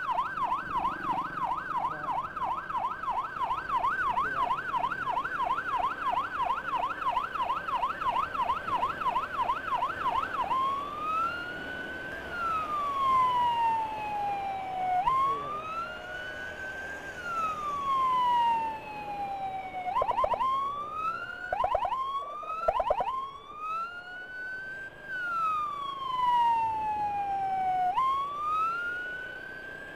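Electronic emergency siren on an escort run. For about the first ten seconds it runs a fast yelp of roughly three warbles a second, then switches to a slow wail that rises and falls every four to five seconds. A few quick short whoops break in about two-thirds of the way through. Road and engine noise lie faintly underneath.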